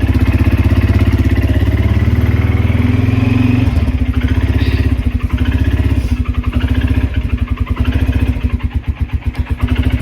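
Kymco MXU 300 ATV's single-cylinder engine running just after a cold start, on choke. Its speed drops about four seconds in, then it idles unevenly, the level rising and falling: a cold engine that the owner calls cold-blooded and prone to shutting off.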